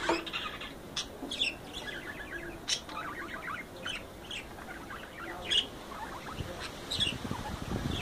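Budgerigars chirping and chattering: a busy run of short, sharp calls, some sliding in pitch, several a second. A low rumble comes in near the end.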